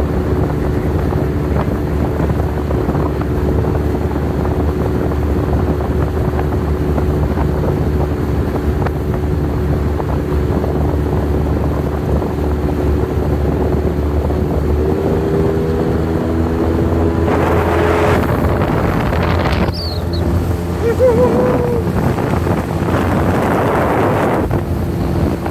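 Small speedboat's outboard motor running steadily under way, its engine note stepping up in pitch about fifteen seconds in as it speeds up. Wind on the microphone and the rush of water and spray come in over the engine in the later seconds.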